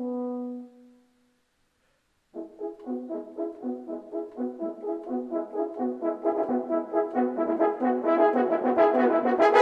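Solo French horn. A held low note ends about a second in, and after a short pause the horn plays a fast run of separate notes, about three or four a second, growing steadily louder.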